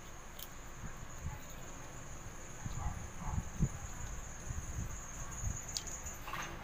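Wooden stick stirring liquid detergent in a plastic bucket, with soft low knocks in the middle, over a steady high chirring of crickets.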